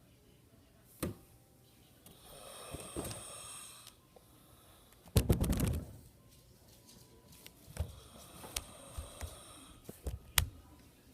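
A man snoring in his sleep: a breathy draw of air, then one loud snore with a rapid rattle about five seconds in. Several sharp clicks come in the later part.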